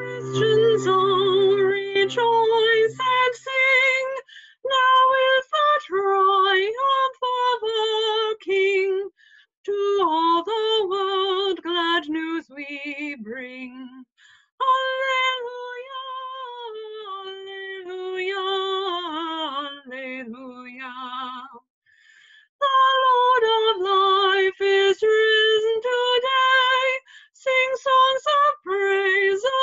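A woman singing solo and unaccompanied, phrase by phrase with vibrato and short breaths between lines. A held instrumental chord under her first notes dies away about three seconds in.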